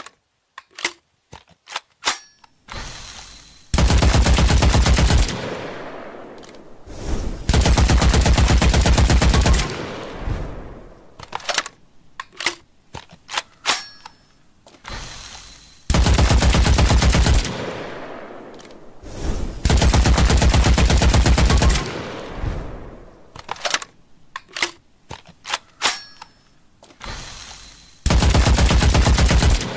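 Machine gun sound effect: a few scattered single shots, then two long bursts of rapid automatic fire, each fading off in an echoing tail. The sequence repeats about every 12 seconds.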